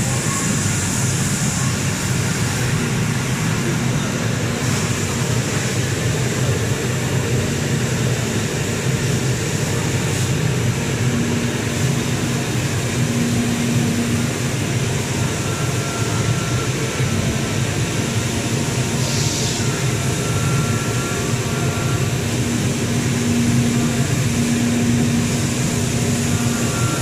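CNC cutting machine running an oscillating knife through printed board: a steady mechanical drone, with a low hum and a higher whine that come and go in stretches of a second or more as the head moves and cuts.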